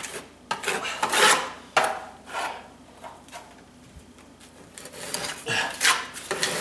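Putty knife scraping drywall joint compound onto a wall in a series of short strokes, with a quieter stretch in the middle. The compound is starting to set and stiffen, which makes it harder to spread.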